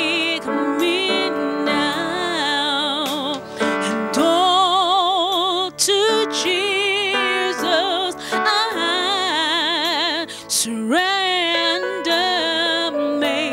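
A woman singing a slow worship song with wide vibrato over sustained keyboard chords and bass guitar.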